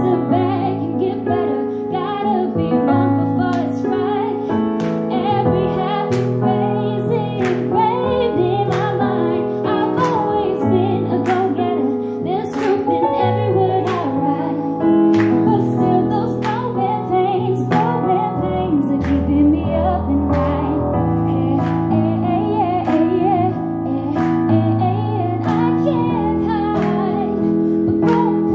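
Live music: a woman singing a slow song over piano accompaniment with a steady beat.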